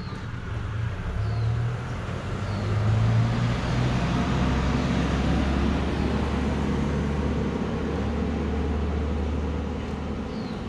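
A motor vehicle's engine running close by, a low steady hum that grows louder over the first three seconds and then holds.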